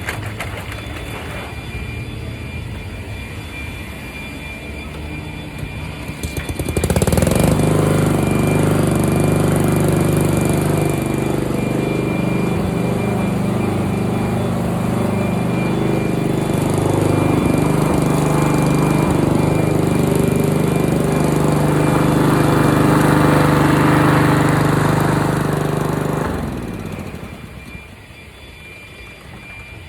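A walk-behind petrol lawn mower engine starts about seven seconds in and runs steadily while shredding leaves. It winds down and stops a few seconds before the end. A quieter steady hum is heard before it starts.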